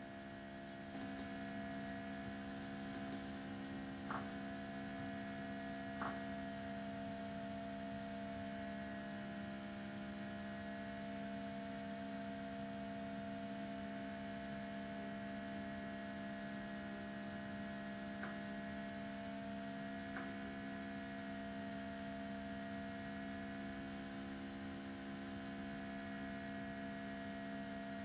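Steady electrical hum made of several steady tones, with a few faint clicks scattered through it.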